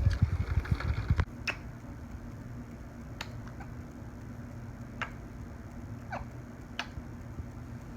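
A newborn baby hiccuping: short, sharp hiccups about every one to two seconds over a faint steady room hum, after a low rumble that cuts off about a second in.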